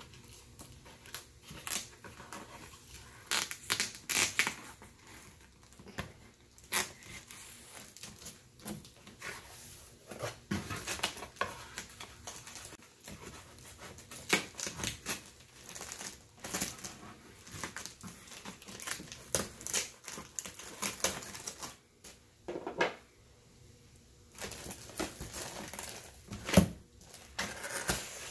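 Cardboard shipping box being cut open and unpacked by hand: irregular crackling, rustling and tearing of plastic wrap, packing tape and cardboard flaps, with short pauses and a sharp snap near the end.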